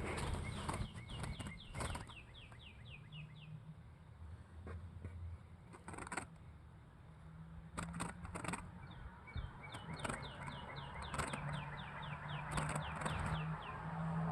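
A small bird gives two quick runs of about a dozen high, downward-sliding chirps, one near the start and one about ten seconds later. Scattered sharp clicks and rattles of the wire cage trap being handled come in between.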